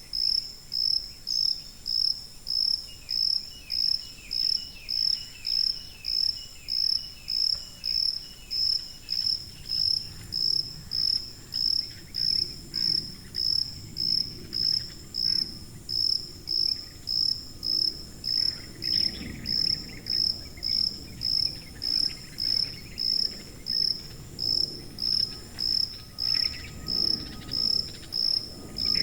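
A cricket chirping in a steady, even rhythm: short high-pitched chirps, about one and a half a second.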